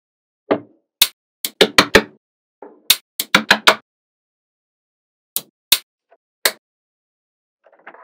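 Small magnetic balls clicking sharply as they snap together, about a dozen clicks in quick clusters with short gaps between them.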